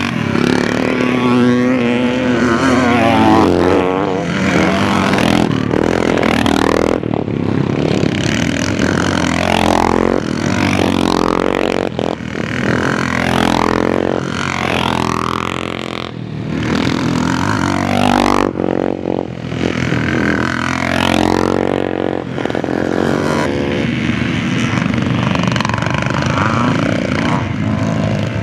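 Vintage motocross bikes racing, several engines at once revving hard and easing off as they rise and fall in pitch over and over.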